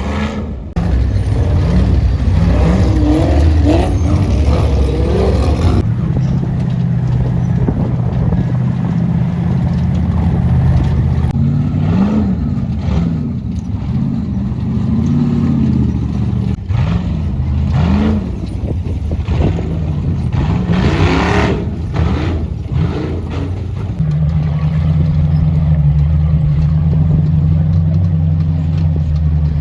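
Ultra4 4400-class rock-racing cars' engines running loudly, revving up and down again and again as they crawl and climb over rocks. The engine note jumps abruptly several times, as if from one car to another.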